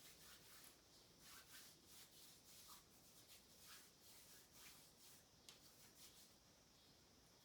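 Faint, soft rubbing strokes repeating every half second or so: hands being rubbed with climbing chalk.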